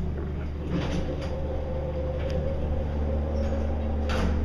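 Schindler hydraulic elevator in operation: a steady machine whine comes in about a second in and drops away in pitch near the end, over a constant low hum, with a couple of light knocks.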